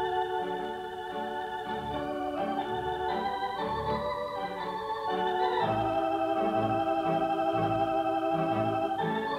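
Organ music: held chords that change every second or two over a bass line of short repeated notes.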